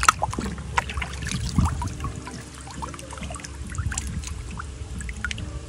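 Thin liquid mud sloshing and trickling, with many small wet clicks and drips.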